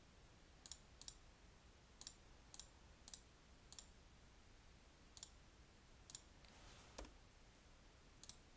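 About ten light, sharp computer mouse clicks at irregular intervals, each one placing an anchor point with the pen tool in Adobe Illustrator.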